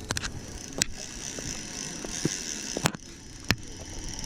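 Shimano Solstace 1000 spinning reel clicking during the fight with a hooked carp on 4 lb line: four sharp clicks over a faint high hiss.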